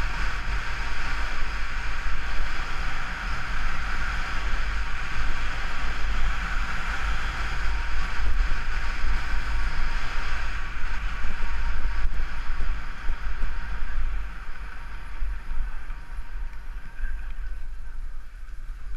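Wind rushing over a helmet-mounted GoPro and skis sliding fast on groomed snow during a downhill run. It eases off about two-thirds of the way through as the skier slows.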